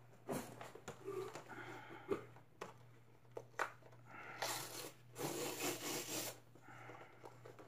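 Paper rustling and sliding as a large paper knitting pattern is handled and its sheets pulled apart, with scattered light clicks and knocks; the longest rustle comes about four and a half seconds in and lasts nearly two seconds. A steady low hum runs underneath.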